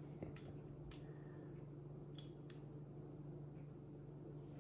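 Faint, scattered small metallic clicks of hands and a tool working on the small parts of a Wilesco model steam engine being taken apart, over a steady low hum.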